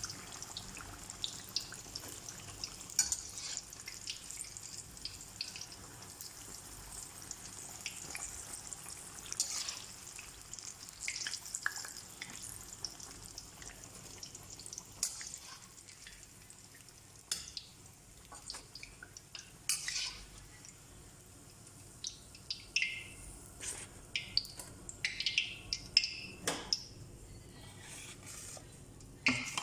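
Utensils clicking and clinking against pans and dishes at irregular intervals over a faint steady hiss, busier near the end.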